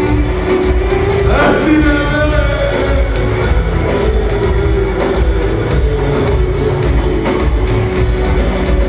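Greek popular (laiko) band playing live and loud through a large hall's PA, with a heavy steady low beat under held melody notes and a sliding melodic line about a second and a half in.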